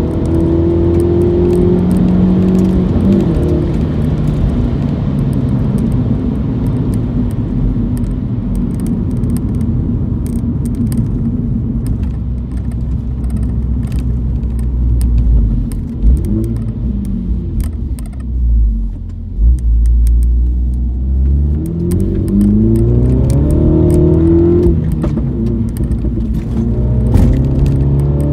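Mini John Cooper Works four-cylinder engine through its JCW Pro exhaust, heard from inside the cabin while driving. The revs fall as the driver lifts off early on, and the exhaust gives a few sharp pops on the overrun around the middle. It then revs up and eases off again twice near the end.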